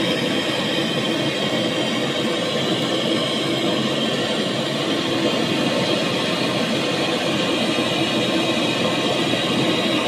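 Gas brazing torch burning at a high flame with a steady rushing hiss, heating a brazed pipe joint on a refrigerator compressor until the braze melts.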